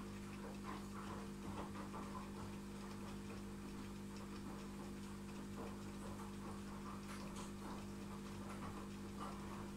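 Steady low hum of running aquarium equipment, with faint irregular ticking and trickling of water.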